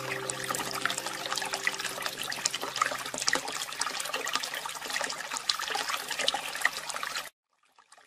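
Water trickling, with held notes of soft music fading out over the first few seconds. The sound cuts off abruptly about seven seconds in.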